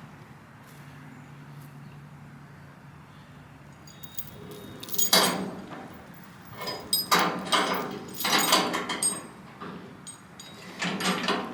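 Irregular clattering and metallic rattling in uneven bursts, beginning about four seconds in after a quiet stretch with a faint low hum.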